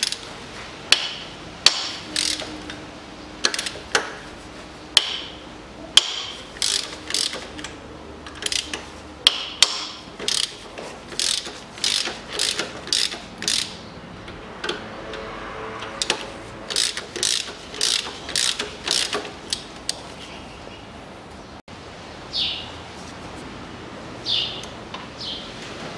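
Hand ratchet with a 14 mm socket clicking in quick runs of strokes with short pauses, undoing the engine-mount nuts. The clicks thin out near the end.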